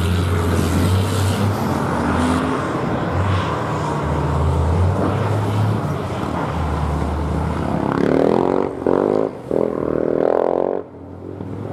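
Heavy diesel rally trucks driving over the dirt course, engines running under load with a deep steady drone. About eight seconds in, an engine revs with a rising and falling pitch, then the sound drops off abruptly near the end.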